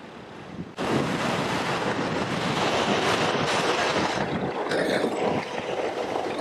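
Sherp amphibious ATV with its engine running, its large tires churning and splashing water as it climbs out of open water onto the ice edge. The loud splashing starts suddenly about a second in and eases off near the end.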